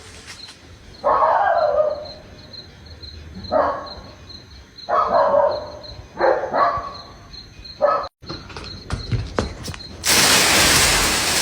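A dog barking in about six short bursts spread over several seconds, then a loud rush of static-like noise about ten seconds in.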